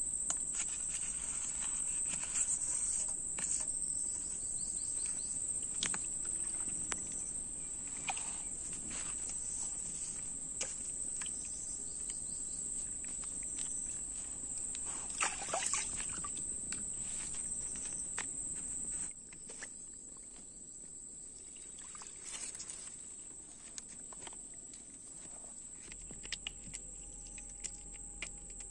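Steady high-pitched insect chorus, with scattered clicks and small splashes from hands washing cut fish pieces in a steel bowl of water.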